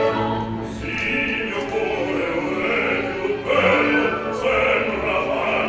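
Operatic baritone singing in Italian over a classical orchestra accompaniment, the voice coming in about a second in.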